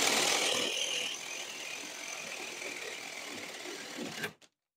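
Cordless drill spinning a 1.5-inch spade bit through a 2x4, with the motor running under load and the bit chewing wood. It is loudest for about the first second, then runs lower and steadier, and cuts off abruptly a little after four seconds in.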